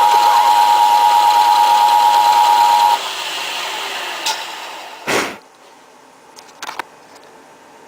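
CNC milling machine running with a loud, steady high-pitched whine that cuts off about three seconds in, leaving a quieter noise that fades away. A single loud thump comes about five seconds in, followed by a few faint clicks.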